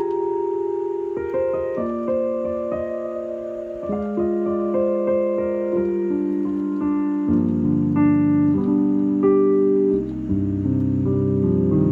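Nord Electro 5D stage keyboard played on its electric grand piano sample: slow chords held and changed every second or two, with deep bass notes joining about halfway through.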